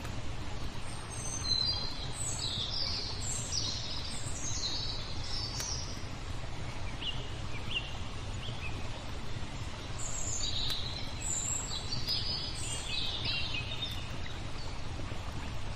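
Small songbirds singing in two bursts of quick high chirps and falling notes, over a steady rushing of flowing water. A few faint sharp pops from a crackling fire come in between.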